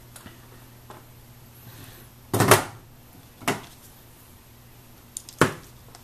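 Handling noises on a wooden desktop: a few short knocks and clicks as heat shrink tubing and scissors are picked up and moved, the loudest about two and a half seconds in.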